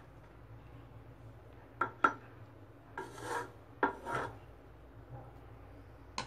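A spoon scraping through cooked rice and knocking against a metal pot while the rice is spread in a layer for biryani: two sharp knocks, then two longer scrapes, and a louder knock at the end.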